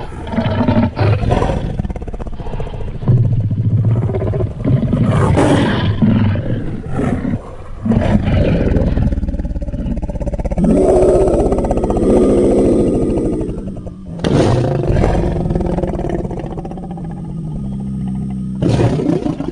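Sound-effect monster roars and growls voiced for a giant piranha creature, following one another with hardly a gap. A long, steadier pitched roar holds from about halfway, and new sharp roars break in about three-quarters through and again near the end.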